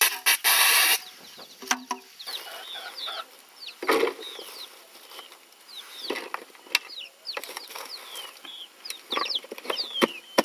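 Chicks peeping in short, high chirps again and again, with a chicken clucking among them. A loud rough scraping rush in the first second and a thump about four seconds in come from hands scooping and packing dry dung.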